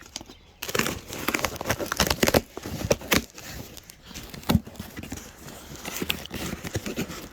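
Cardboard shipping box being handled and opened: irregular knocks, scrapes and crinkling of cardboard and packing, beginning about half a second in.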